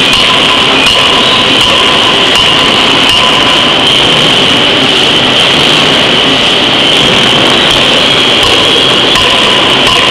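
Loud, steady machinery din of a forging hammer at work on a hot workpiece: a constant roar with a high-pitched whine running through it and a few faint knocks.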